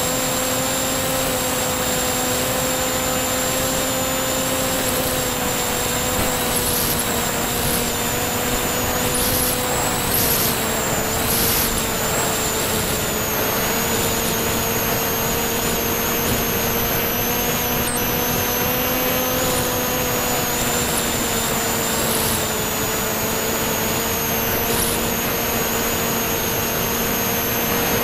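The FPV model plane's motor and propeller drone steadily through the onboard camera, with a hum whose pitch sags a little about halfway through and again near the end. Wind rushes over the camera, with a few brief gusts.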